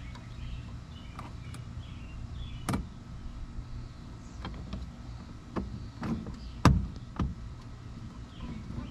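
Sharp plastic clicks and taps from fitting an LED bulb into a pickup truck's dome light: about half a dozen, spread out, the loudest about two-thirds of the way through, over a steady low hum.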